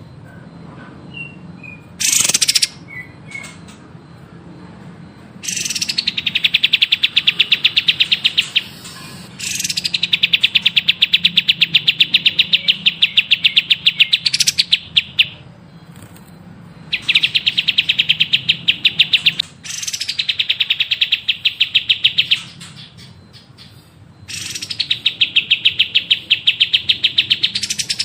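Recorded songbird song of the kind used as training song for caged birds: after a single short call, a bird gives five long, very rapid trills of a few seconds each, every one opening on a brief higher note, with short pauses between them.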